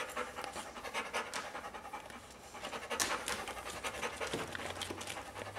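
A Labrador retriever panting rapidly, with a brief lull about two seconds in.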